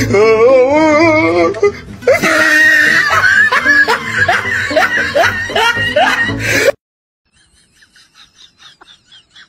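A voice wailing with a wavering pitch, then loud laughter over music. It all cuts off abruptly near seven seconds in, leaving faint, rapid, evenly repeating chirps.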